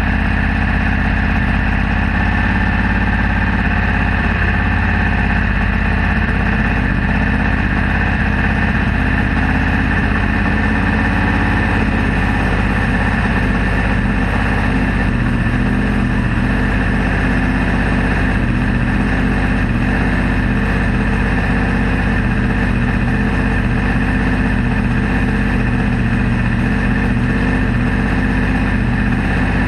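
A 305 cubic-inch sprint car V8 with mechanical fuel injection, idling steadily.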